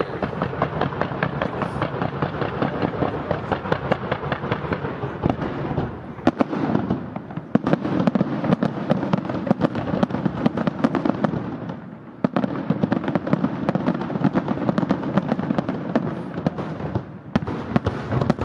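Aerial fireworks display: dense, rapid crackling and popping with bangs mixed in, nearly continuous. There are brief lulls about six and twelve seconds in, and the sharpest bangs come around seven to eight seconds in.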